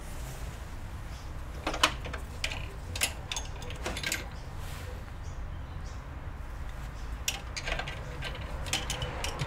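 Scattered light clicks and taps of small tools and parts being handled during a laptop teardown, clustered about two seconds in, around three to four seconds in, and again near the end, over a steady low hum.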